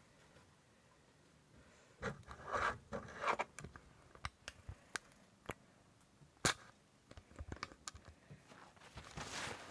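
Handling noise from a phone being picked up and moved around by hand: rustling, then a series of sharp clicks and knocks as fingers grip and rub against it, with a rustly scrape near the end.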